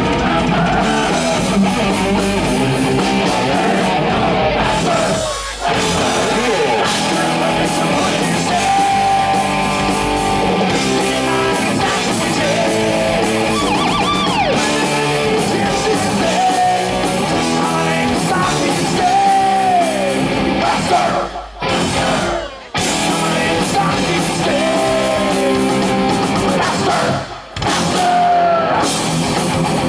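Heavy metal band playing live on electric guitars and drum kit, with singing. The music stops short for a moment a few times.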